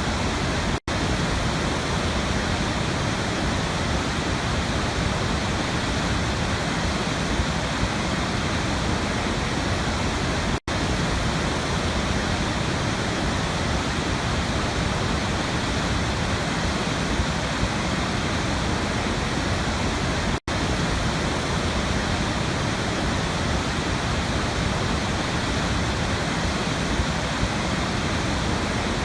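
Waterfall, a steady, even rush of falling water, broken three times by a split-second gap about ten seconds apart.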